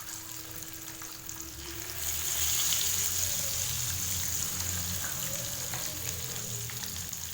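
Boiled eggs frying in oil and spice masala in a pan on a low flame: a steady sizzle that grows louder about two seconds in.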